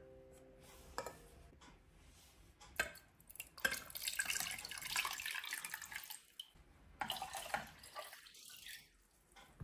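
Water poured from a glass cup into a small metal saucepan over eggs, in two pours, the second starting about seven seconds in. Before the pouring, a few light knocks as the eggs are set in the pan.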